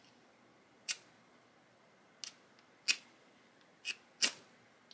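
Hand-held flint spark striker snapped about five times, sharp scraping clicks a second or so apart, throwing sparks at fire-starter tinder that does not catch.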